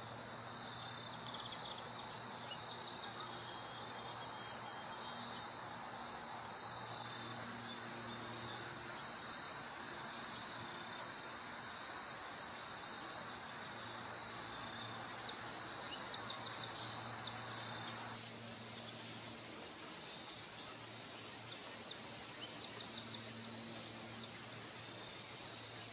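Steady high-pitched trilling of an insect chorus, crickets or similar night insects, over a steady rushing hiss that drops noticeably about eighteen seconds in.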